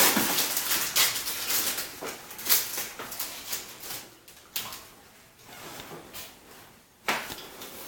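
Hockey cards and pack wrappers being handled on a table: a run of short rustles, slides and flicks, busiest in the first few seconds, thinning out after, with a sharper rustle or knock about seven seconds in.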